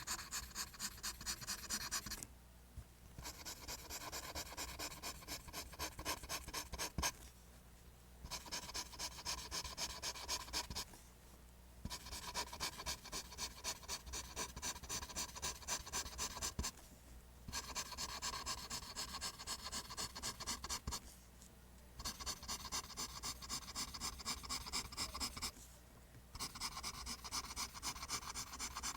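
Pencil lead scratching across paper in quick back-and-forth strokes, about four a second, as lines are drawn. The strokes come in runs of a few seconds, broken by brief pauses.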